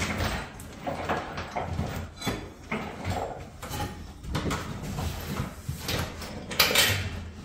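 Wooden folding loft ladder knocking and creaking under a man's steps as he climbs it up into the attic hatch, with scuffs from his boots and bag. The knocks come irregularly, loudest right at the start and again near the end.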